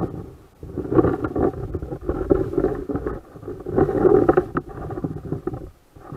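Muffled, surging water noise picked up through an underwater camera's housing as it moves through the water under the ice, coming in uneven swells about once a second.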